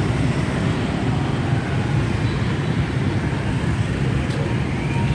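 Steady street traffic: a continuous low rumble of motorbike engines passing on the road.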